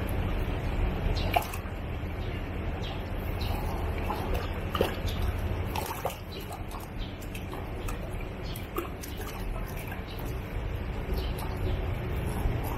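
Water splashing and dripping in short irregular bursts as koi are handled and caught, over a steady low hum.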